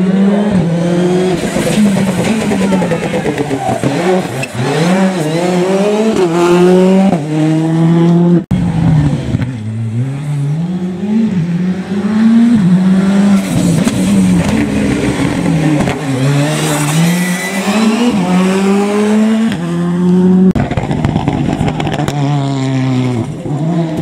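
Rally car engine revving hard, its pitch climbing and dropping over and over as it accelerates, shifts and brakes through a series of bends on a special stage.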